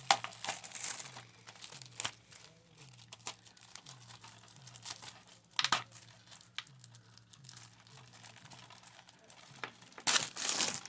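Plastic shrink-wrap being torn and crinkled off a DVD case, in scattered crackles with a louder burst of crinkling near the end.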